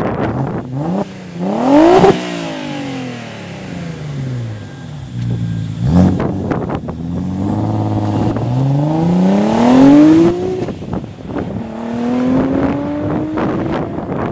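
Audi S4's 2.7-litre twin-turbo V6 through 3-inch custom downpipes and a Borla 3-inch exhaust, revved twice in place, sharply about two seconds in and briefly near six seconds, then accelerating away in a long rising pull with a drop at the gear change and a second rising pull near the end.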